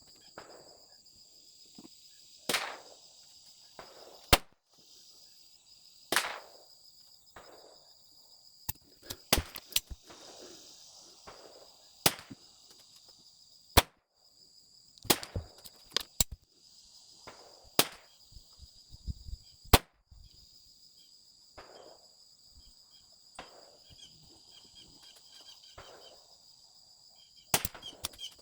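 A series of .22 LR shots from a Smith & Wesson Victory pistol fitted with a Tandemkross Spitfire barrel and muzzle brake, sharp single cracks spaced irregularly one to a few seconds apart, some followed by a short echo. Insects buzz steadily behind the shots.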